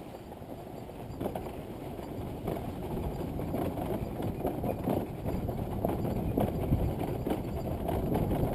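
Dirt bike bumping over a rough trail: irregular knocks and rattles over a rumble that grows steadily louder.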